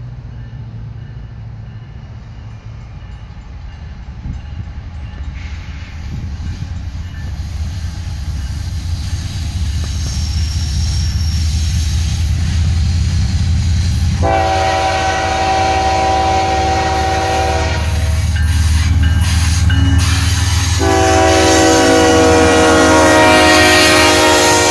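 CSX freight train locomotive approaching, with the low rumble of its diesel and the wheels growing louder. Its air horn sounds a long chord of several tones about 14 seconds in. It cuts off after about three and a half seconds, then sounds again about 21 seconds in and is still blowing at the end.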